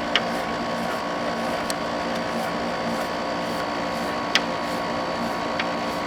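General Electric ADEL50LRL2 dehumidifier running with its compressor and fan on, a steady hum made of several tones while its coils cool down. A few sharp clicks stand out over it.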